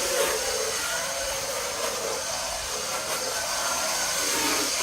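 Steady whirring of a power tool running in a workshop, an even noisy din with a thin high whine.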